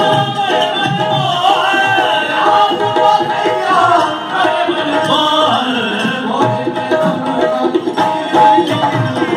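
Qawwali-style devotional music: harmoniums holding steady tones under a male voice singing long gliding phrases, with a dholak keeping the beat.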